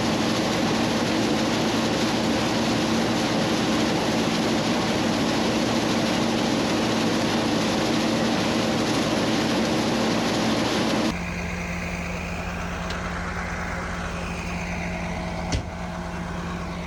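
Large farm machine engine running under load: a loud, steady drone with a dense rushing noise. About eleven seconds in it cuts off abruptly to a quieter, steady engine hum, with a single sharp click near the end.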